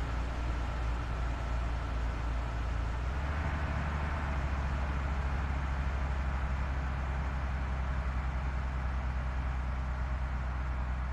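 Tour bus engine running with steady road noise, the low drone shifting about three seconds in.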